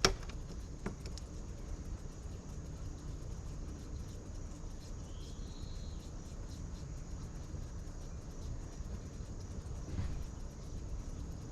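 Steady low outdoor background rumble, with a sharp click right at the start and a short high chirp about five seconds in.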